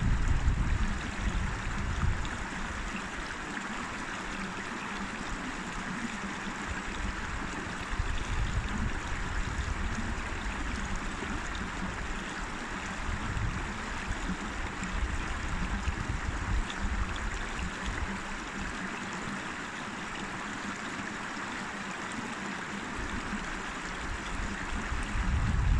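River water flowing steadily, an even rush of running water. A low rumble is heavier at the start and again near the end.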